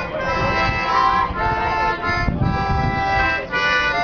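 A street musician's free-reed instrument playing held chords that change about once a second.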